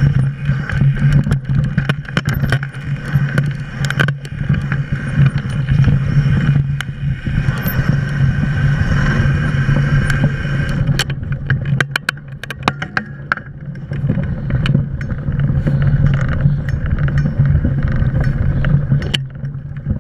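Mountain bike riding a dirt and gravel trail, heard from a camera mounted on the bike: a steady rumble of wind and tyres with frequent clicks and rattles from the bike and loose stones. It goes briefly quieter about twelve seconds in, amid a dense run of clicks.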